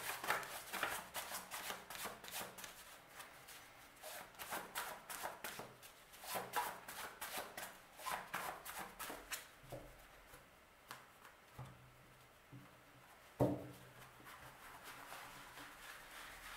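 A deck of tarot cards being shuffled by hand: a fast run of clicks and rustles as the card edges riffle against each other for about ten seconds, then sparser, quieter card sounds. One sharp knock about thirteen seconds in.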